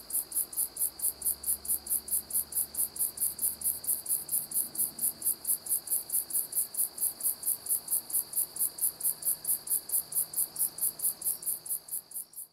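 Crickets chirping in a steady, even rhythm of about four high chirps a second over a continuous high trill, fading out near the end.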